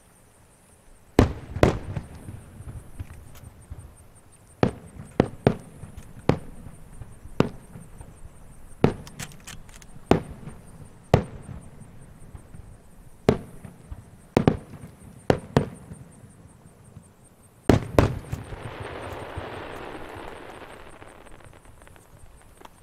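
Aerial firework shells bursting high overhead: a string of sharp bangs at irregular intervals, each with a low rumbling tail. Near the end, two bangs in quick succession are followed by a few seconds of dense crackling.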